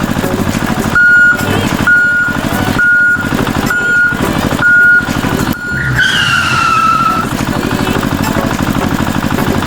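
Mini DIY tractor's engine chugging steadily, with six evenly spaced reversing beeps about a second apart. A high tone then falls in pitch over about a second.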